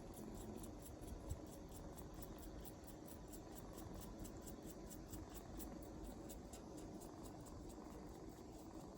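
Kitten purring softly while suckling, with faint quick rhythmic sucking clicks, a few a second.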